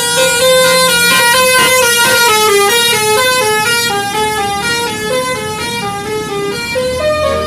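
A bus's telolet basuri musical horn playing a quick melody: a run of stepped notes, each held a fraction of a second.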